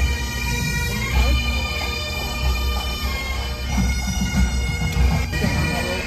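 Bagpipes playing a tune over steady drones, with irregular low rumbling underneath.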